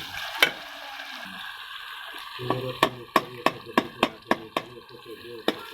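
Spoon stirring in a cooking pot of aloo matar, knocking sharply against the pot's side in a quick run of clacks, about three a second, starting about halfway through.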